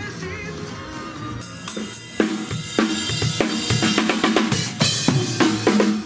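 Pearl drum kit being played: kick drum, snare and tom hits under crashing cymbals, starting about a second and a half in and cutting off abruptly just before the end.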